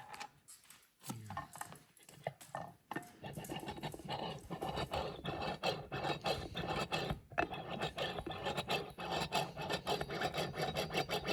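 Hydraulic cam-chain tensioner being pumped by hand in oil to bleed out air, a fast run of rasping, squishing strokes that starts about three seconds in after a few scattered clicks.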